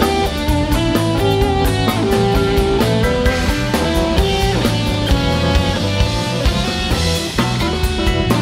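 Live rock band playing: an electric guitar runs a lead line of single notes over bass and a drum kit.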